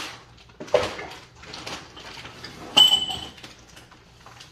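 Hard containers being handled and knocked together on a tabletop, a few knocks and clinks. The loudest comes about three seconds in: a sharp clink with a brief ringing tone.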